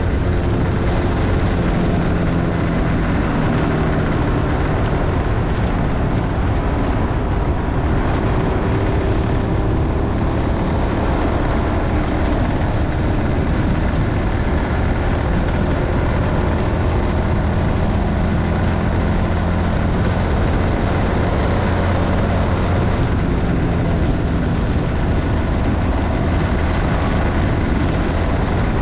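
Motorcycle engine running steadily while riding, its note drifting up and down a little, under a constant rush of wind and road noise.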